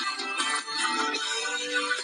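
Background music: bright instrumental with plucked or keyboard-like notes over a steady melodic line.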